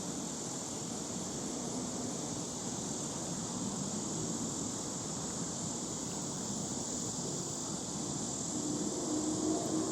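Steady, high insect chorus of summer crickets or cicadas shrilling without a break, over a faint low rumble.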